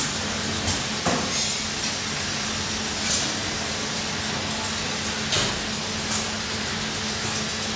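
Production-line machinery running with a steady hiss and a low hum, and several short knocks scattered through, as the conveyor of an LED aging test line moves units along.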